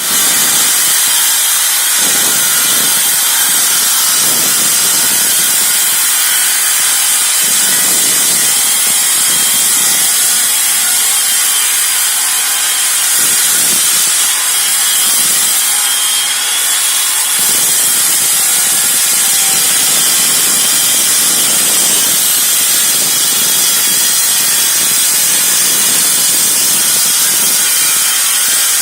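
Husqvarna K4000 Cut-n-Break electric power cutter with twin diamond blades cutting a concrete slab: a loud, steady grinding with a high whine from the motor and blades.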